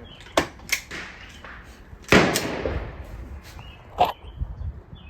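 Handgun shots. A few sharper, lighter cracks come in the first second and a half, then a loud shot about two seconds in with a long echo, a second shot right after it, and another about four seconds in.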